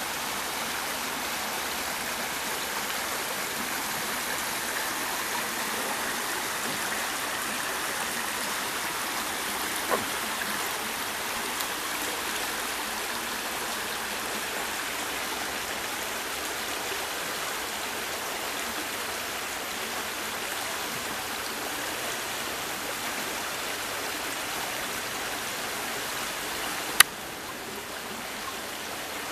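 Creek running high with spring water, a steady rushing of fast water over its rocky bed. A sharp click near the end, after which the rushing is a little quieter.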